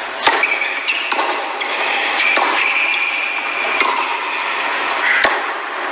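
Tennis ball struck by rackets and bouncing during a serve and rally, a sharp pock every second or so, with short high squeaks of shoes on the hard court. Faint steady hiss underneath.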